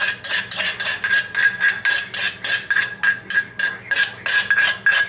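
Metal spoon scraping and clinking against a clay mortar as green papaya salad is scooped out onto a plate: a fast, even run of sharp clinks, about four or five a second, each with the same ringing tone.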